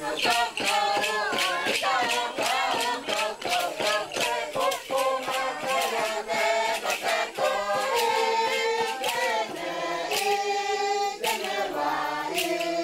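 A group of voices singing a chant together, over a regular beat of sharp percussive clicks.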